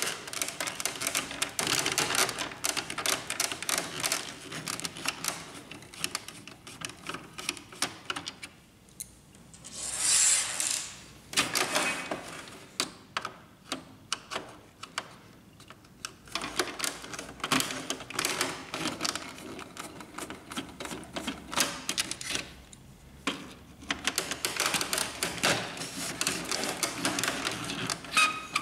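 Screwdriver backing screws out of the plastic control panel of a Canon inkjet printer: dense, irregular small clicks and scrapes of the tip in the screw heads and of the plastic housing being handled. A short hiss comes about ten seconds in.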